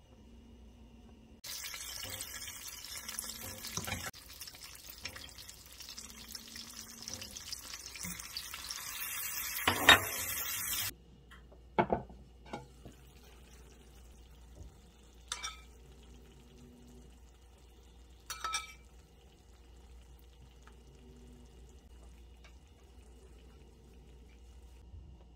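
Butter melting and sizzling in hot olive oil in a frying pan, the hiss growing louder, with a sharp clink about ten seconds in. It cuts off, and a few light knocks follow as the terracotta lid of a clay baker is handled.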